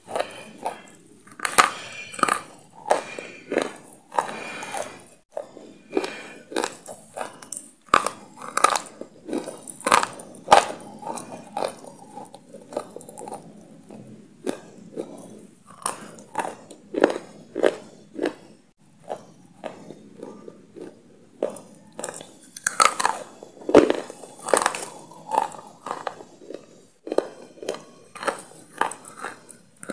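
Close-miked chewing of crunchy food, with many short crisp crunches a few times a second.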